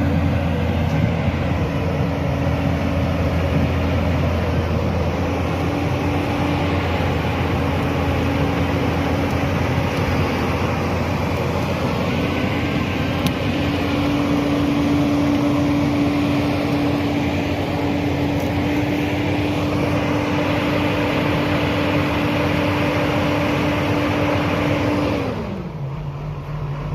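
JCB 245 excavator's diesel engine running steadily at high revs. Near the end it slows down to a lower, quieter idle.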